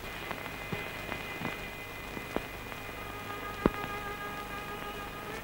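Hiss and crackle of an old optical film soundtrack, with scattered sharp clicks, the loudest about three and a half seconds in. Faint sustained music notes come in over it and thicken from about three seconds in.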